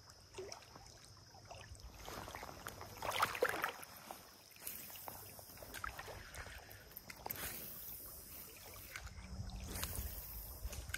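Faint sloshing and splashing of shallow river water as a wading angler shifts and gets up in it, with a louder splash about three seconds in.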